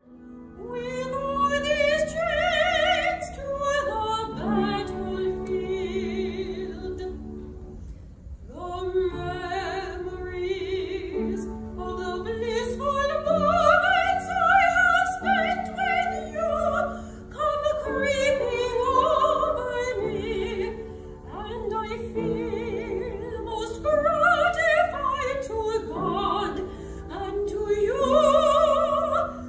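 A woman singing in classical operatic style with a wide vibrato, accompanied by piano. She sings in long phrases, with a brief break about eight seconds in.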